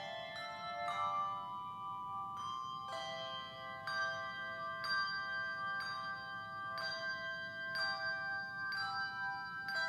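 Handbell ensemble playing a slow hymn arrangement: chords of ringing handbells struck about once a second, each left to ring on and overlap the next.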